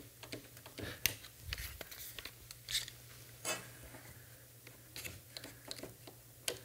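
Scattered clicks and light knocks of small one-handed bar clamps being set and tightened, with aluminium frame parts shifting on a wooden workbench.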